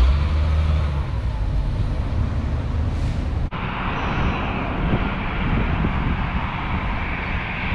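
Wind rumbling on the microphone over road traffic noise. After an abrupt cut about three and a half seconds in, a jet engine whine from an approaching airliner builds and rises in pitch.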